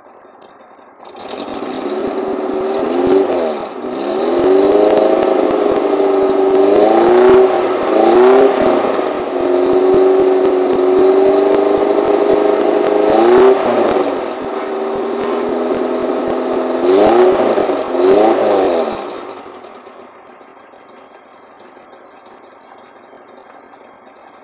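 Suzuki Carry ST100's engine, heard at the tailpipe, revved up from idle and held at raised speed for about eighteen seconds, with several quick throttle blips in which the pitch rises and falls, then dropping back to a quiet idle near the end. It is a cold-morning warm-up.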